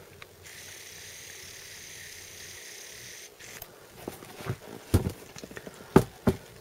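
A steady hiss for about three seconds, then a run of sharp knocks and clicks from objects being handled, the loudest two near the end.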